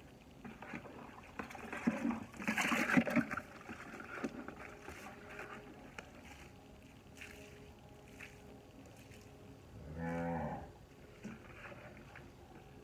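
A cow moos once, a short low call about ten seconds in. Before it, about two to three seconds in, comes a louder burst of rustling and clattering.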